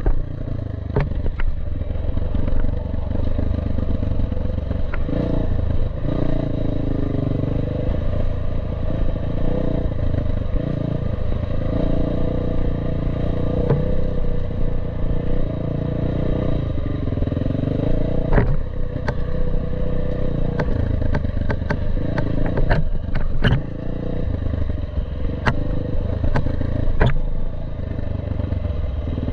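Trail dirt bike's engine running and rising and falling in pitch with the throttle over a rough, rocky track, with scattered sharp clacks from stones and the bike's chassis jolting over the ruts.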